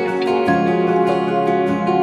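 Instrumental background music with sustained chords, the chord changing about half a second in and again near the end.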